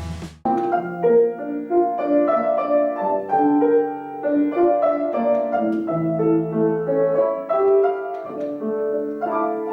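Piano playing the slow introduction to a Ukrainian art song: a melody over held bass notes, starting about half a second in.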